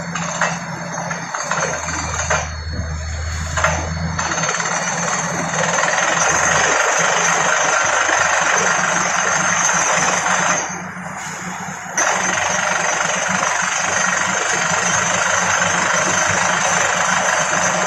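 Borewell drilling rig at work: an engine drone under a loud, steady rush of noise, with sharp knocks in the first few seconds. Past the middle the noise drops for about a second and a half, then comes back abruptly.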